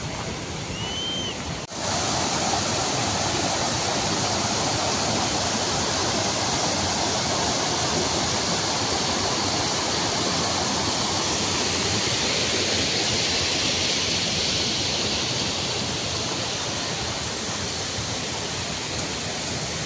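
Waterfall: steady rushing of falling water, which jumps louder at a cut about two seconds in.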